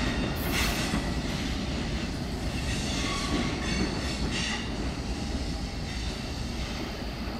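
Freight train cars rolling away over the track with a steady low rumble, broken by a few brief high-pitched wheel squeals.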